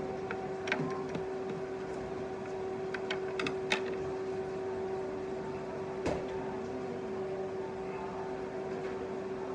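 A few light clinks and taps of tableware as a ceramic rice bowl is set down on a tray, over a steady hum with one constant tone.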